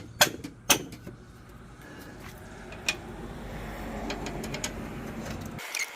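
A couple of sharp metallic knocks, then a low, steady mechanical rumble that slowly grows louder and cuts off abruptly near the end.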